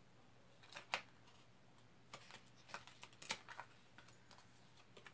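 Tarot cards being handled: a few light clicks and taps of card stock, a sharp one about a second in and a cluster between about two and three and a half seconds.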